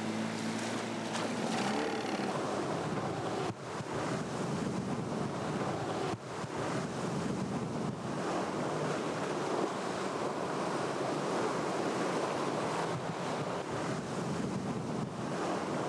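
Wind buffeting the microphone over the rush of choppy sea and surf. An outboard motor's steady hum is heard for the first couple of seconds, then it drops out under the wind and water.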